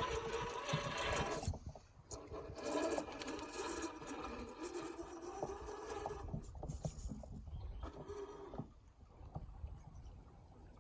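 RC crawler's electric motor and geared drivetrain whining, the pitch rising and falling with the throttle, with scattered clicks. It cuts out briefly about two seconds in and eases off near the end.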